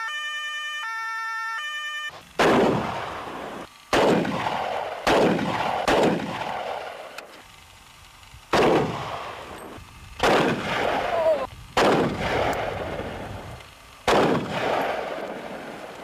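A two-tone emergency siren sounds for about two seconds. It is followed by about eight gunshots at irregular intervals, each with a long echoing decay: ballistic test firing at an armoured BMW 750iL E38.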